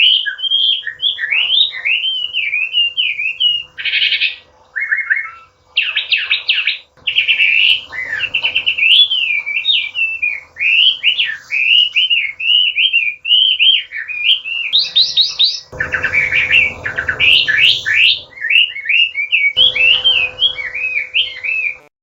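Chinese hwamei singing a long, almost unbroken run of loud, varied whistled phrases that slur up and down, with quick trills mixed in. A faint steady hum lies underneath.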